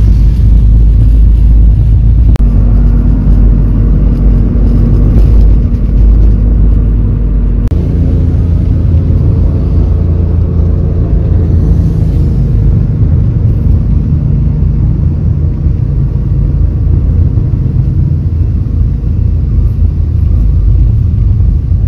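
Honda Accord Cielo driving, heard from inside the cabin: a steady low rumble of engine and road noise, with the engine hum changing pitch about eight seconds in.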